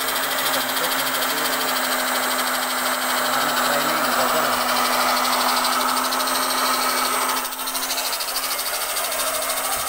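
Steady mechanical running noise of workshop machinery with a constant low hum, dipping briefly about seven and a half seconds in.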